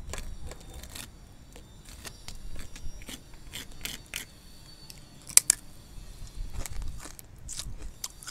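A needle scraping and picking at a brittle dalgona sugar candy to free the stamped triangle, making small scattered clicks and scratches, with a sharper double click about five and a half seconds in.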